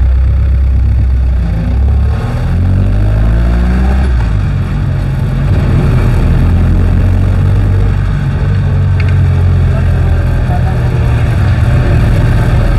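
Jeepney's diesel engine heard from inside the cab, loud and continuous. About two seconds in it revs up with a rising pitch as the jeepney accelerates, then runs at a steady pitch while cruising.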